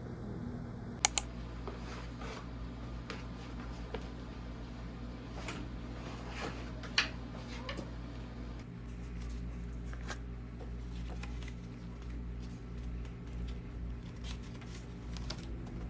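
Quiet room with a steady low hum, two sharp clicks close together about a second in, and scattered light clicks and rustles of small objects being handled.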